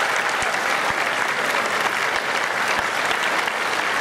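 Audience applauding steadily, a dense even clapping, with a few dull low thumps.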